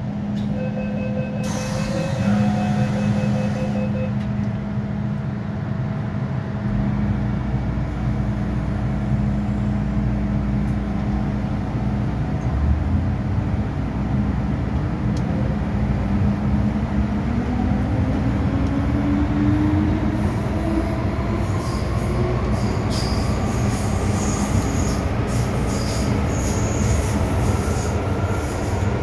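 MTR M-Train heard from inside a passenger car, running with a steady rumble and hum. A rapid beeping sounds for the first few seconds. From about halfway, the traction motor whine rises steadily in pitch as the train gathers speed.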